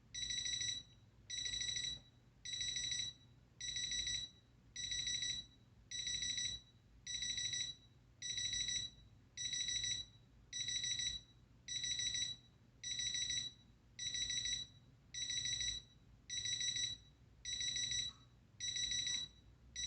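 Capello Big Time CA-35 alarm clock's alarm going off: a steady series of high-pitched electronic beeps, about one a second, each lasting about half a second.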